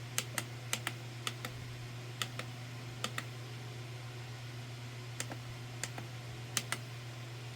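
Light, irregular clicks, often in close pairs, over a steady low hum: small handling clicks as a microscope is adjusted to focus on a knife edge.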